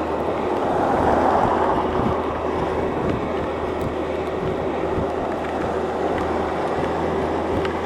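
Wind and rain rushing over a motorcycle ridden at road speed through heavy rain and standing water. Underneath is the steady drone of a Yamaha FJR1300's inline-four engine. The rush swells briefly about a second in.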